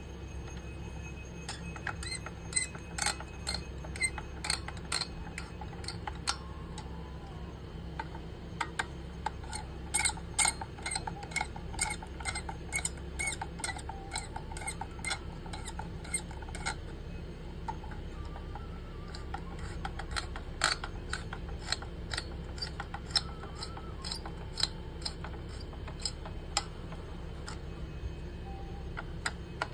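Irregular sharp clicks and taps of plastic and metal parts handled inside an open desktop PC case, around the stock AMD CPU cooler and the graphics card, some with a short ring. They come thickest from about two to seventeen seconds in and again around twenty to twenty-seven seconds, over a low steady hum.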